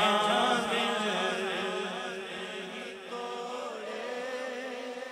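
Male voices chanting a naat: a steady held drone under a wavering, drawn-out sung line, growing fainter over the first few seconds.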